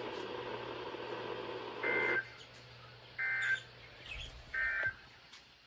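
Three short bursts of EAS end-of-message data tones, each a rasping two-pitch digital warble, about a second and a half apart. They come after about two seconds of radio hiss and mark the end of the alert message.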